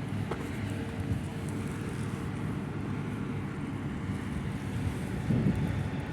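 Heavy construction machinery engines running steadily at a distance, with wind buffeting the microphone.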